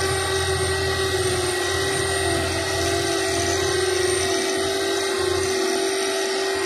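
Claas Lexion 770TT combine harvester running steadily under load, a constant drone with a high-pitched whine, while a John Deere tractor tows it out of soft ground.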